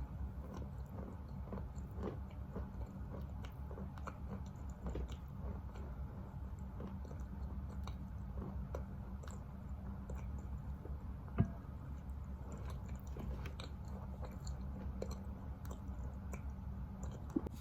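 A person chewing wet Khrapovsky natural chalk, a run of small gritty crunches and squishes as it is chewed down to a paste, with one sharper click about two-thirds of the way through.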